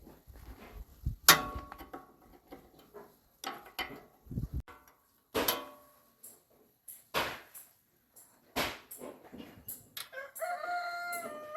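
Sharp metallic clanks, about four loud ones spread a second or two apart, each with a brief ring, as parts of a hand tiller are worked on. Near the end a rooster starts crowing.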